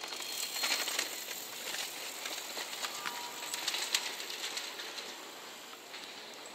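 JR West 227 series electric train rolling slowly over the points: a run of wheel clicks and clatter on the switches and rail joints, thinning out after about four seconds.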